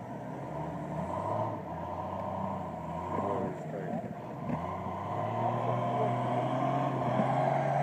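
An off-road 4x4's engine running, its note steadying and growing a little louder over the second half, with voices in the background.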